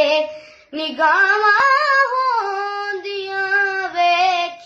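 A boy singing a naat (Punjabi devotional song) solo in a high voice, without instruments, drawing out long, ornamented notes. A held note ends just after the start, there is a short breath, and he comes back in under a second in.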